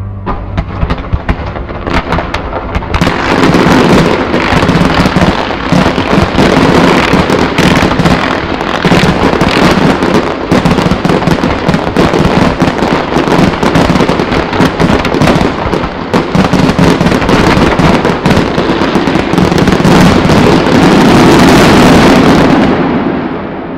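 Large aerial fireworks display: many shells bursting and crackling in rapid, overlapping succession. The bursts build over the first few seconds into a continuous dense barrage, which dies away near the end.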